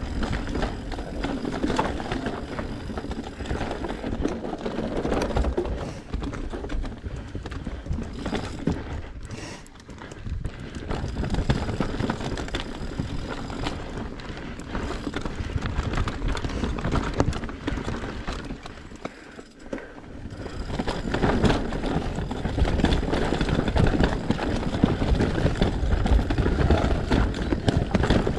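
Mountain bike ridden fast down a dirt singletrack: knobby tyres rolling over dirt and roots with the bike rattling and clattering in quick, dense clicks. It eases off briefly twice, about a third and two thirds of the way through, and is loudest near the end.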